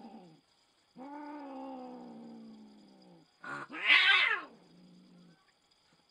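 Cats caterwauling while mating: a long yowl that slowly falls in pitch, then a much louder, harsh screech about three and a half seconds in that trails off into a lower, quieter call.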